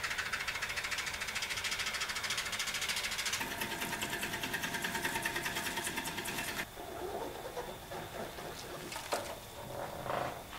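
Woodturning tools cutting a green elm bowl blank spinning on a lathe: a dense scraping cut with a fast, even beat. About two-thirds of the way through it turns quieter, a lighter cut with scattered ticks.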